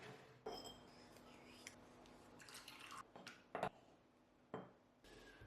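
Groceries being handled and set into a fridge: glass and plastic containers clinking and knocking. There is a short ringing clink about half a second in, a rustle near the middle, and a sharp knock about three and a half seconds in.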